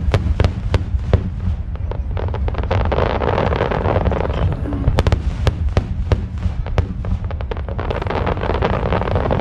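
Aerial fireworks going off in quick succession: sharp bangs of shell bursts, a few spaced ones at first, then a dense run from about two seconds in, over a steady low rumble. A crackling hiss from glittering stars rises in the middle and again near the end.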